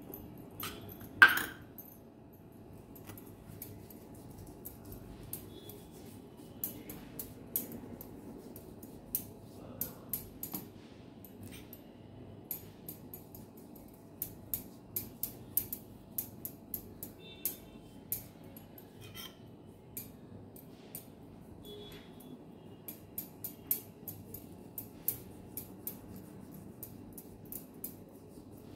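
Light, irregular clinks and taps of kitchen utensils, with one louder knock about a second in.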